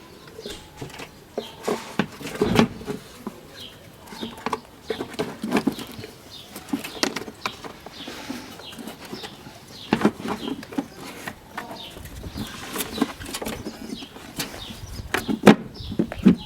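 Engine airbox lid being handled and fitted back over a new air filter: scattered knocks, clicks and rubbing at irregular intervals.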